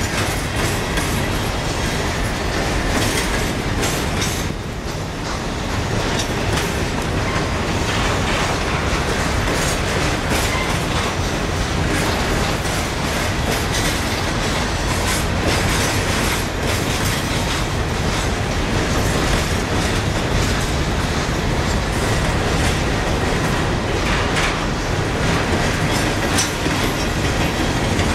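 Coal train's freight cars rolling steadily past, wheels clicking and clattering over the rail joints.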